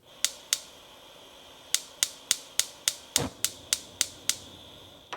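Gas stove's spark igniter clicking: two clicks, then a run at about four clicks a second, over a steady hiss of gas. About three seconds in, the burner catches with a soft low whoosh, and a single click of the knob comes near the end.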